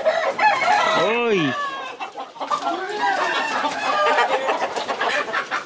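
Chickens and roosters clucking and calling over one another, with one loud rising-and-falling call about a second in.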